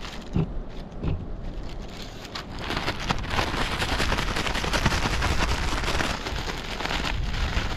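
Plastic zip-lock bag crinkling and rustling as it is shaken to coat pieces of fish in seasoning: a dense crackle from about two and a half seconds in, easing near the end. Two soft thumps near the start as the bag is handled and sealed.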